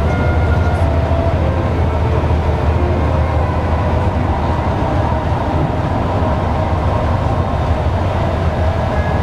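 Steady low rumble of a moving tour coach, engine and road noise heard from inside the cabin.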